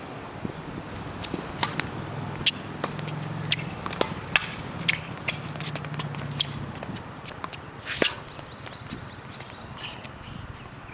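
Tennis rally on a hard court: a series of sharp pops and smacks as the ball is struck by rackets and bounces on the court surface, the loudest hits coming from the near player, with shoes scuffing between shots.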